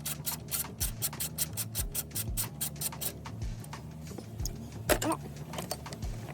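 Background music with a fast run of ticking hi-hats, stepping bass notes and a deep kick drum about once a second. A brief clatter comes about five seconds in.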